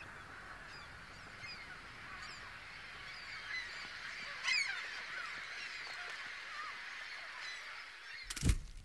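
A flock of birds calling, many short scattered honks and chirps over a steady background hiss. A single sudden thump near the end is the loudest moment.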